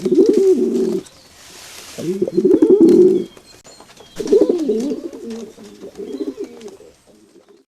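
Pigeon cooing: three low, warbling coo phrases, the third the longest.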